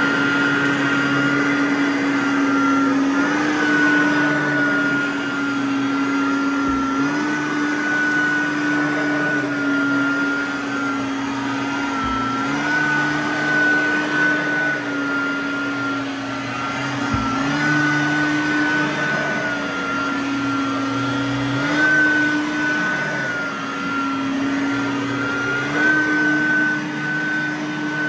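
Riccar R10S SupraLite upright vacuum cleaner running over carpet with a steady whine, its pitch stepping slightly up and down every few seconds as the load on the motor changes.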